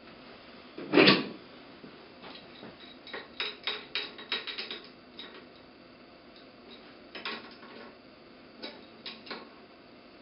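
A loud knock about a second in, then irregular runs of light clicks as a wrench tightens the nuts on a bolt of a small turbine's guide-vane lever arm.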